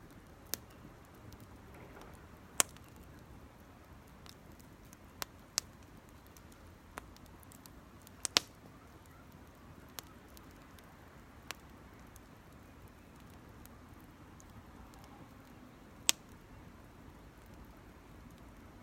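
Campfire crackling: about ten sharp pops at irregular intervals over a low steady hiss.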